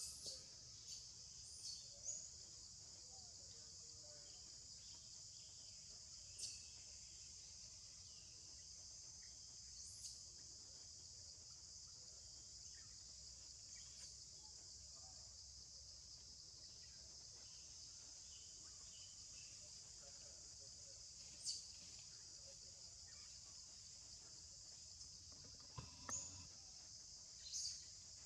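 Faint, steady high-pitched insect chorus, with a few short, sharp chirps scattered through it.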